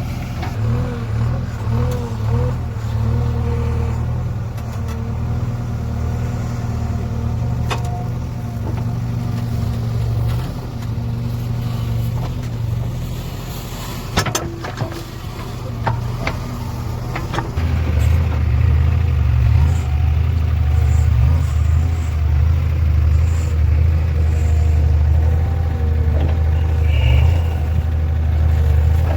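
JCB 3DX backhoe loader's diesel engine running steadily as the machine drives along; a little over halfway through, the engine note drops lower and gets louder. A few sharp knocks sound around the middle.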